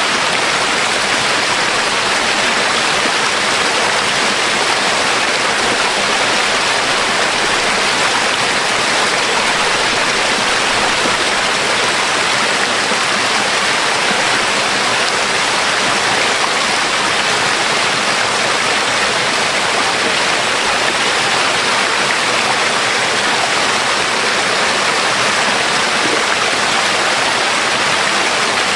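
Waterfall and stream water rushing close by: a loud, steady hiss that does not change.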